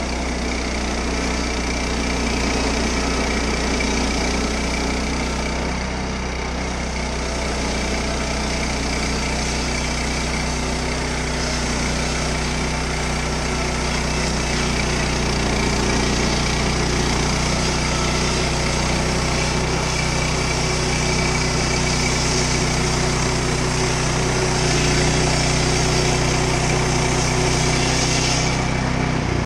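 Woodland Mills HM126 portable bandsaw mill running under load, its small gasoline engine running steadily as the band blade saws lengthwise through a pine log. It grows slightly louder as the sawhead draws nearer near the end.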